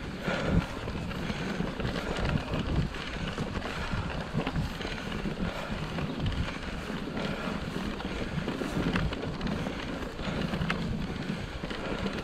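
Wind buffeting the microphone of a camera on an Orbea Rallon mountain bike riding over a grass field, with a steady rumble from the tyres and frame on the uneven ground.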